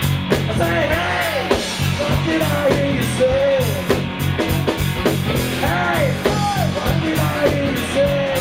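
Live rock band playing: a steady drum beat and bass under a melodic lead line that slides up and down in short phrases.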